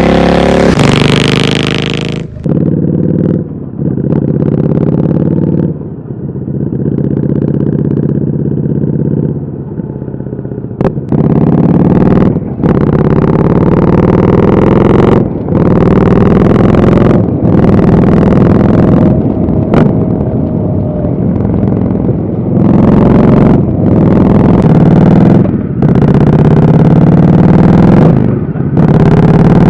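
Indian Scout Bobber's V-twin engine through an aftermarket Dr. Jekill & Mr. Hyde exhaust under way. It steadies for a while, then revs up again and again, each climb in pitch cut by a short drop as the throttle closes, with sharp cracks at the breaks.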